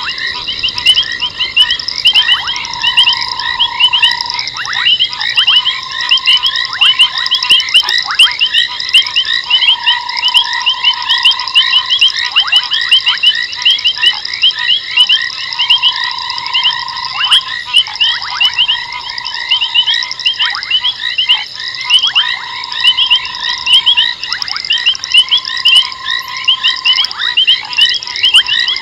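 Night chorus of frogs: many rapid, overlapping high-pitched calls throughout, with a steady lower trill that starts and stops every few seconds and short falling calls scattered through.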